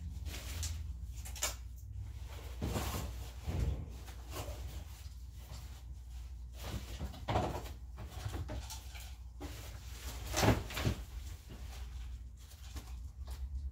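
Stored items being shifted and handled by hand: irregular knocks, clunks and rustling, the loudest knock about ten and a half seconds in, over a steady low hum.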